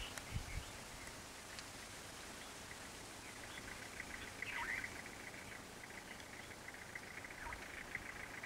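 Faint forest ambience: a fast, high trill that comes in a few seconds in, and a few short bird calls that fall in pitch.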